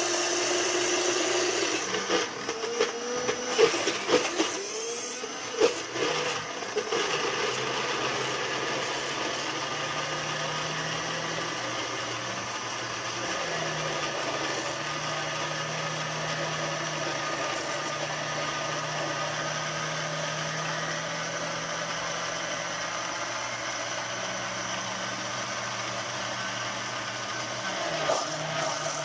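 Electric mixer-grinder running steadily, blending chickpeas and water into hummus paste. A few seconds in, there is a patch of knocking and clatter as the jar lid is handled.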